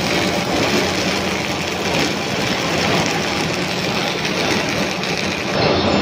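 Loud, steady din of foundry machinery running, with no single source standing out; it shifts a little near the end.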